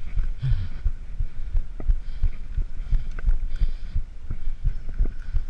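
Mountain bike rolling over a loose gravel track: a steady low rumble from the tyres with irregular knocks and rattles from the bike.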